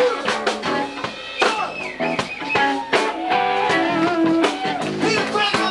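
A live band playing: electric guitar over bass guitar and drums, with some bent guitar notes.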